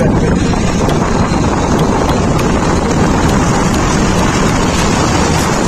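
Loud, steady wind rush buffeting the microphone of a moving vehicle, with the vehicle's running noise underneath.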